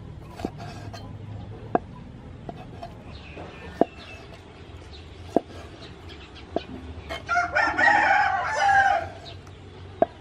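A knife chops through squid tubes onto a wooden cutting board, giving sharp single taps every second or two. About seven seconds in, a loud bird call lasting about two seconds rises over the chopping.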